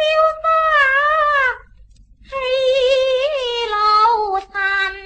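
A woman singing Cantonese opera in the high female-role voice, drawing out long notes with a wavering pitch. She breaks off briefly about two seconds in, then sings on, her line stepping down and trailing off near the end.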